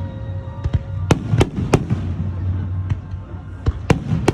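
Aerial fireworks bursting: a string of sharp bangs over a low rumble, with three bangs close together starting about a second in and another cluster near the end.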